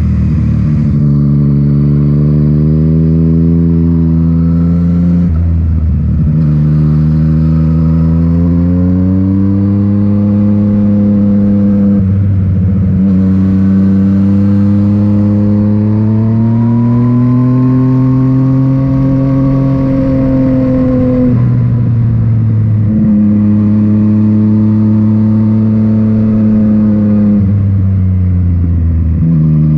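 Yamaha MT-09 three-cylinder engine through an Akrapovic titanium exhaust, running under way. The engine note climbs over several seconds at a time and shifts sharply about four times as the throttle and gears change.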